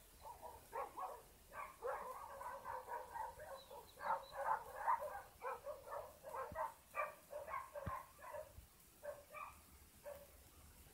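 Dogs barking, faint, in a long run of quick short barks with brief pauses.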